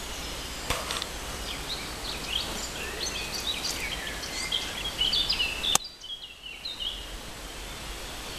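Steady outdoor wind hiss, with a songbird singing a run of short chirps from about two to six seconds in. A sharp click comes near the start and another about six seconds in, after which the hiss drops for a moment.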